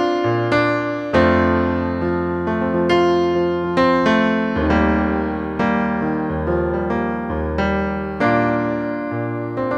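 Piano music: chords struck one after another, about one a second, each left to ring and fade.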